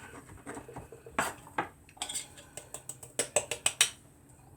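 Kitchen knife chopping black olives on a cutting board: two single strikes, then a quick run of chops at about five a second.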